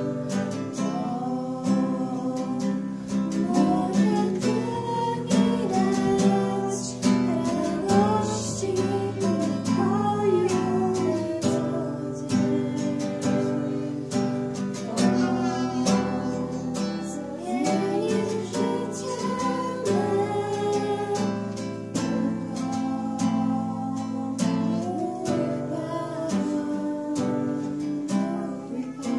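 A small congregation singing a hymn together, accompanied by a strummed acoustic guitar.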